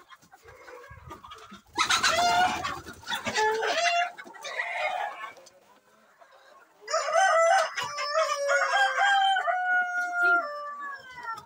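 Roosters crowing, twice: one crow about two seconds in, and a longer one about seven seconds in whose last note is held and falls away.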